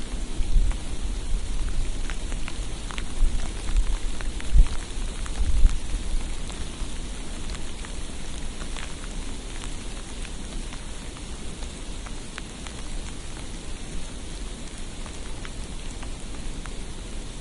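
Steady hiss of falling precipitation on a street, with scattered light ticks of flakes or drops striking surfaces. Low rumbles swell and fade during the first six seconds or so, then the hiss settles down evenly.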